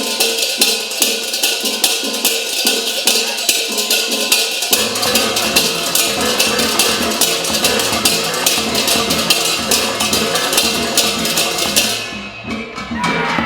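Balinese percussion ensemble music: a fast, steady run of bright metallic strikes, with lower drum and gong tones joining about five seconds in. Near the end the high strikes thin out briefly before the full ensemble returns.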